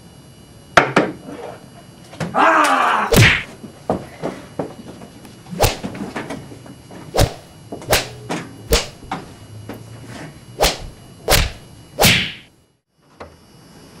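A series of about ten hard whacking blows at uneven intervals, struck in a staged beating, with a loud rushing swell of sound about two and a half seconds in. The sound cuts off abruptly near the end.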